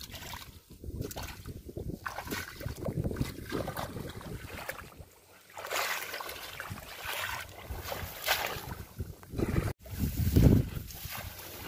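Shallow muddy ditch water splashing and sloshing in irregular bursts as a collapsible net fish trap is pressed into it by hand and the worker wades along it.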